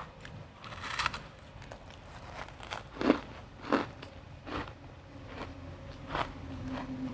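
Refrozen crushed ice being bitten and chewed: a run of separate crisp crunches at an uneven pace, the loudest about three seconds in.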